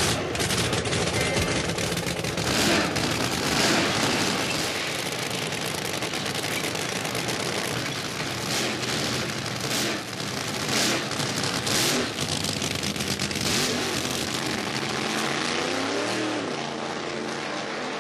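Supercharged nitro Funny Car V8 running at idle, loud and crackling with rapid machine-gun-like popping from the open exhaust. The sound begins abruptly and keeps going throughout.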